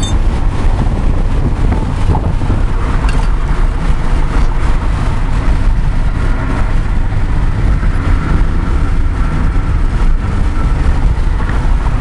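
Cabin noise of a 1999 Chevrolet Monte Carlo with a supercharged 3800 V6 cruising on the highway: a steady low drone of engine and road noise.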